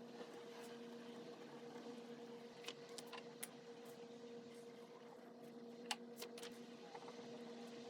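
Low steady electrical hum in a quiet room, with a few faint light clicks, a cluster about three seconds in and another about six seconds in.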